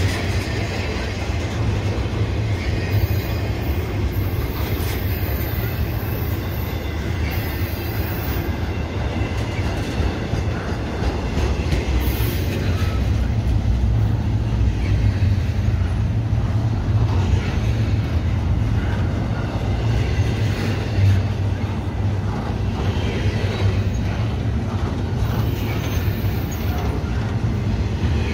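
Double-stack intermodal freight train rolling past: a steady rumble of steel wheels on rail from the container well cars going by.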